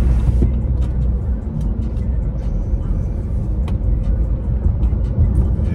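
Steady low rumble of engine and road noise inside a vehicle's cab while driving, with a few light ticks.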